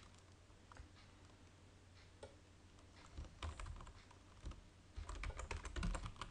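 Typing on a computer keyboard: a few scattered keystrokes, then quicker runs of typing in the second half, fastest near the end.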